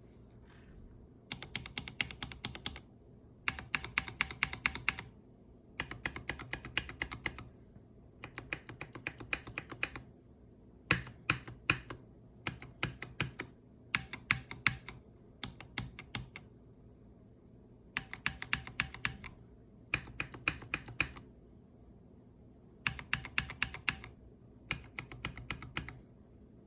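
Typing on a mechanical keyboard in a wooden case with an aluminum plate: about ten short bursts of rapid keystrokes, each a second or so long, with brief pauses between.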